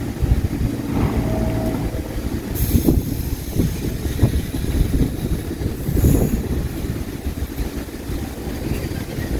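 New York City subway train running on the track: a steady low rumble with irregular clatter from the wheels and two short bursts of high hiss, about three and six seconds in.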